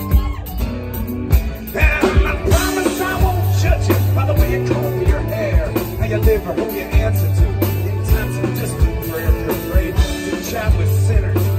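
Live folk-rock band playing an instrumental break: strummed acoustic guitar, bass and a steady drum beat, with a lead melody line coming in about two seconds in.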